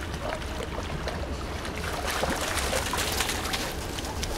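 Water splashing and sloshing as a black Groenendael puppy wades into a lake and swims through the shallows, the splashing growing busier about halfway through. A low rumble of wind on the microphone runs underneath.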